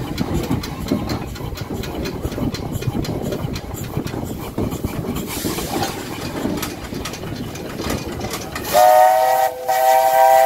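Small industrial steam tank locomotive running along the track with its wagons, its wheels and running gear clicking and clanking. Near the end its steam whistle sounds twice with a chord of several notes, a short blast and then a longer one.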